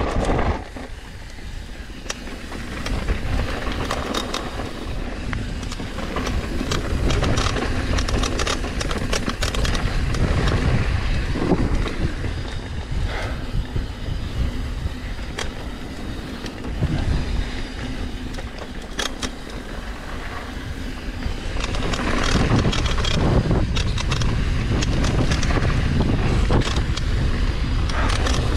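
Mountain bike descending a dry dirt and gravel trail: wind rushes over the camera microphone, the tyres roll on loose dirt, and the bike knocks and rattles over bumps and rocks. It gets louder about two-thirds of the way through as the bike picks up speed.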